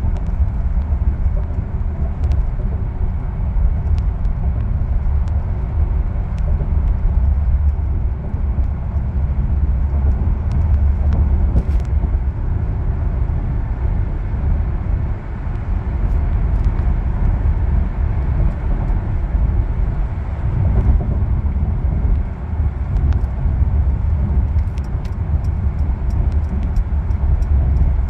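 Steady low rumble of a car cruising at highway speed, heard from inside the cabin: tyre and road noise with the engine underneath.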